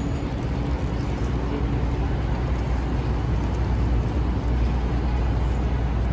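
Steady city street traffic: the engines and tyres of passing cars, with a deep low hum. A faint steady tone sits in the first two seconds.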